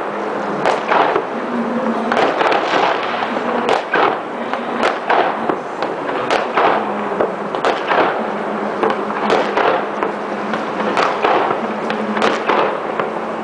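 New Year fireworks and firecrackers going off all over a city district: a dense, unbroken crackle of many overlapping bangs and pops, with a louder report about every second.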